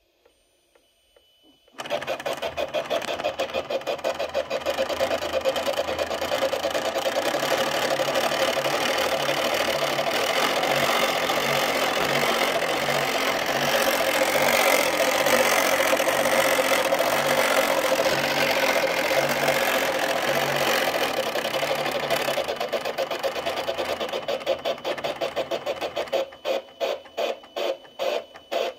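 RAM electronic steam engine sound module in a model freighter, playing steam engine chuffing through its speaker. It starts suddenly about two seconds in and runs as a fast, even chuff. Near the end it slows to separate chuffs, a few a second, before stopping.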